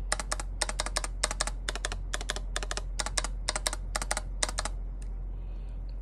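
Repeated presses of the Backspace key on a Filco Minila R mechanical keyboard with Glorious Panda tactile switches: sharp clacks, each press a quick down-and-up pair, about two a second with a short pause near the end. The key's Costa stabilizer is not yet lubed, so the presses carry its rattle.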